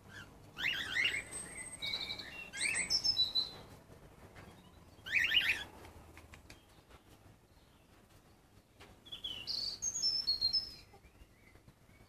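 Cockatiels calling, chirps and short whistles in three spells: just after the start, around five seconds in, and from about nine to eleven seconds.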